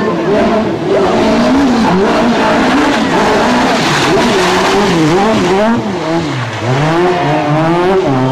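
Suzuki Ignis S1600 rally car's engine revving hard, its pitch rising and falling over and over with throttle and gear changes. It drops lowest about two-thirds of the way in, then climbs again.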